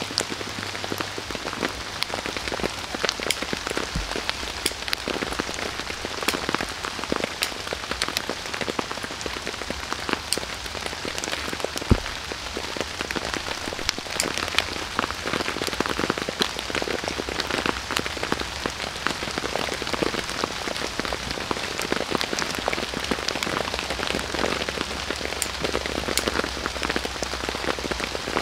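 Steady rain falling on a tarp shelter and wet forest floor, dense with the sharp ticks of single drops hitting close by. There is one louder sharp knock about twelve seconds in.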